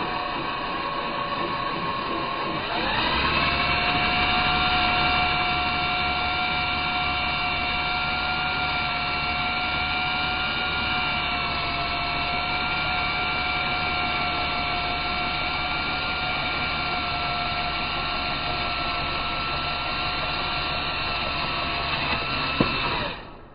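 Cordless drill running steadily while drilling holes, its pitch dropping about three seconds in and holding lower until it stops just before the end.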